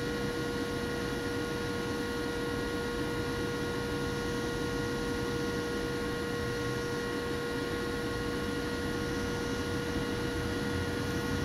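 Steady hum and hiss with several constant whining tones, unchanging throughout.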